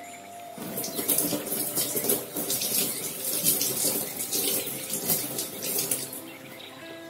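Kitchen tap running into a stainless steel sink, the stream splashing over hands as they rinse the roots of money plant cuttings. The flow comes in about half a second in and eases off near the end.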